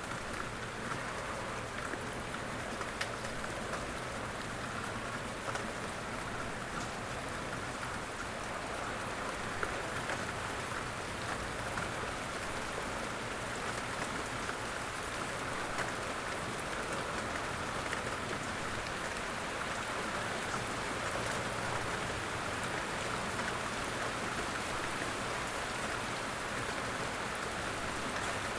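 Steady rain falling on a surface, an even hiss with a few separate drops ticking now and then.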